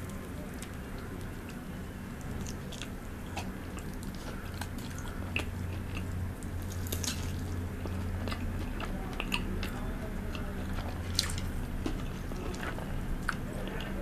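Close-miked biting and chewing of a crispy breaded fried chicken fillet, with many sharp, irregular crunches of the coating, over a steady low hum.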